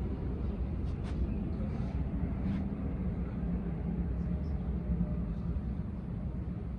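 A steady low mechanical rumble with a hum in it, and a few faint clicks about a second in and again a little later.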